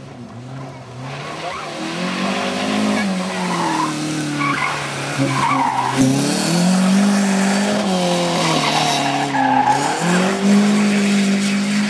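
Competition hatchback's engine revving hard on a sprint course. The engine note climbs and drops several times as the car accelerates and lifts through the tyre chicanes, with tyre squeal. It grows louder as the car approaches and is loudest as it passes close by about halfway through.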